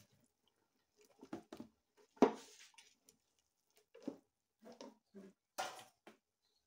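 Wooden spoon scraping and knocking against metal cooking pots while thick ogbono soup mixture is scooped from one pot into another and stirred. There are several short scrapes and knocks, the loudest a sharp knock about two seconds in.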